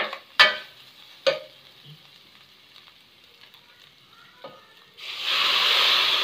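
A metal ladle knocks a few times against an aluminium karahi of browned shredded chicken. About five seconds in, chicken stock is poured into the hot pan, and a sudden loud, steady sizzle starts.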